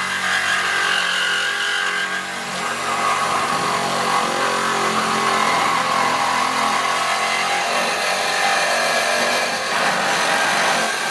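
Reciprocating saw (Sawzall) running steadily as it cuts through the car's exhaust pipe.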